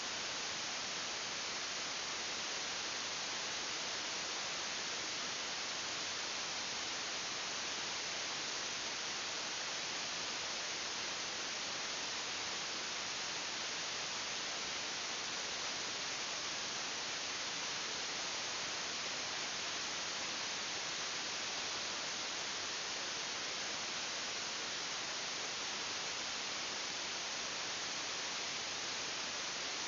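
Steady, even hiss.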